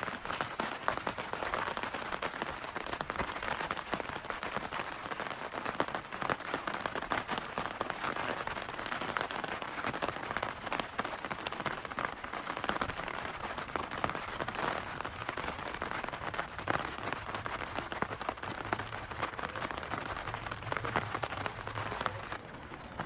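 Steady rain, a dense patter of many small drops hitting a surface close by. It changes abruptly to a quieter, duller sound a little before the end.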